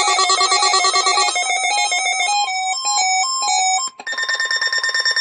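Electronic alarm tones of a weekly weather-radio warning test: a quick run of beeping tones stepping between pitches, then after a brief break about four seconds in, a steadier pulsing tone.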